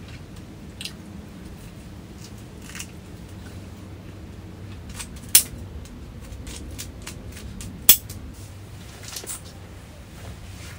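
Metal kitchen scissors and tongs snipping and clicking against each other and a food tray: scattered light clicks, with two sharp, loud metallic clicks about five and eight seconds in, over a low steady hum.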